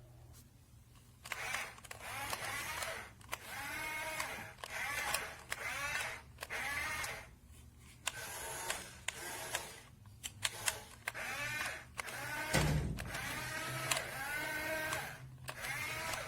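The small electric gear motors of a toy remote-control dump truck whirring in short bursts, the whine bending up and down in pitch as they start and stop, with clicks between bursts. There is a single thump about twelve and a half seconds in.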